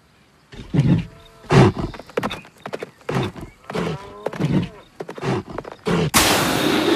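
Cartoon sound effects of a swollen bull bounding away in big leaps: a run of heavy thuds about every 0.7 seconds, with short wavering tones between some of them. Near the end comes a loud rushing hiss.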